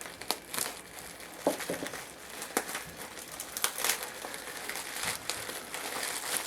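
Packaging crinkling and crackling in irregular bursts as a knife cuts through the taped wrapping.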